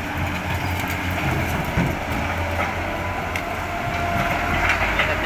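Caterpillar hydraulic excavator's diesel engine running with a steady low rumble as it digs and swings its loaded bucket, with scattered knocks of rock and soil. A faint steady whine comes in about three and a half seconds in.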